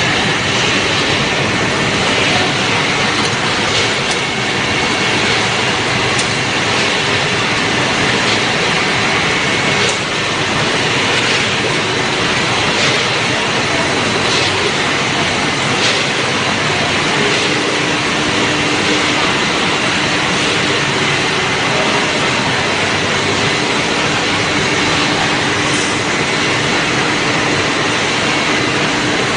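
Steady din of food-processing machinery in a textured soy protein plant, a dense even noise with occasional faint clicks; a faint steady hum joins about halfway through.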